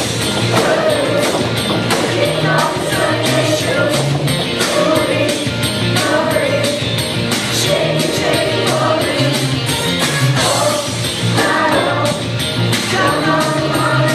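Upbeat music with singing over a steady, driving percussion beat.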